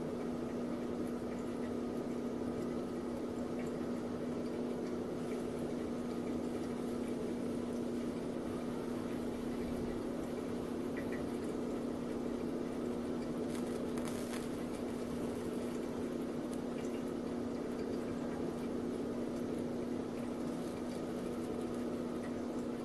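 H160 oxyhydrogen brazing torch setup running steadily while a carbide tip is brazed: a constant hum with a liquid, bubbling sound, typical of the electrolysis gas generator and its water bubbler.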